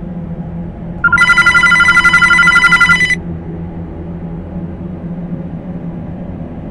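Telephone ringing: one fluttering ring of several high tones, starting about a second in and lasting about two seconds, over a low steady hum.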